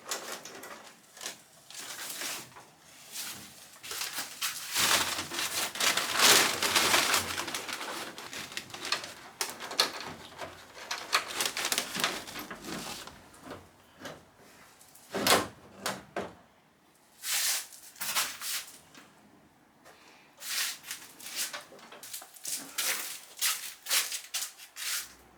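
Irregular clunks, scrapes and rattles of car body panels and trim being taken off by hand, with a longer stretch of scraping and handling in the middle.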